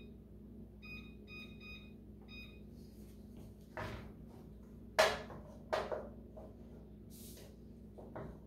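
Over-the-range microwave keypad beeping, five short beeps in the first couple of seconds as a 2-to-3-minute timer is set. Then a wooden spoon knocks and scrapes in a frying pan of butter and onion, with the loudest knock about five seconds in.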